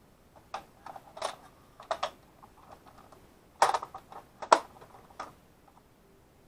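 Irregular clicks and taps of keys being pressed on a handheld label maker, with two louder clicks about three and a half and four and a half seconds in.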